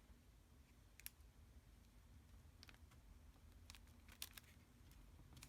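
Near silence with a few faint, light clicks and taps of paper-craft pieces being handled and set down on the work surface.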